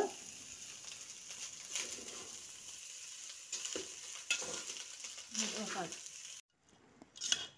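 Metal spoon stirring and scraping through cooked rice in an aluminium pot, in irregular strokes against the pot's sides over a faint sizzle. The sound cuts off abruptly about six and a half seconds in.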